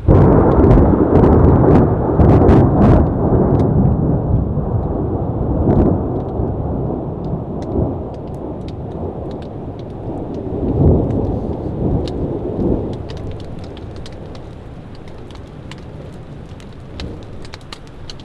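Thunder rumbling during a thunderstorm, with rain falling. A loud rolling peal starts suddenly and fades over several seconds, then a second rumble swells about ten seconds in and dies away. Sharp raindrop hits tick throughout.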